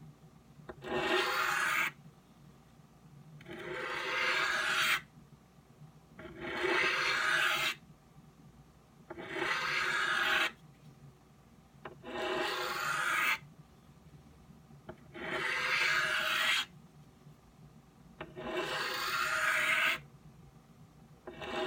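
Knife blade drawn across the fine side of a 12-inch oiled Norton bench stone with light pressure, a pass on each side of the blade in turn: seven smooth rasping strokes, each about a second and a half long and about three seconds apart. He has the angle right and the edge is nearly finished.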